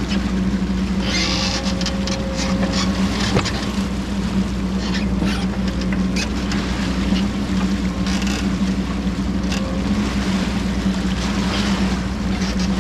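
Diesel engine of a CAT 420F backhoe loader running steadily under work, with scattered knocks and scrapes from the machine working debris out of a plugged pipe.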